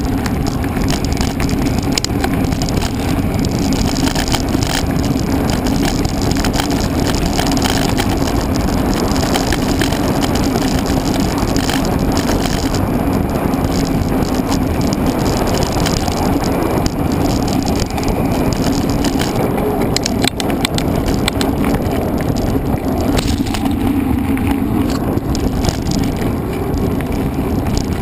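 Mountain bike being ridden over an off-road trail: a steady, loud rush of wind and tyre noise, with frequent small rattles and knocks from the bike.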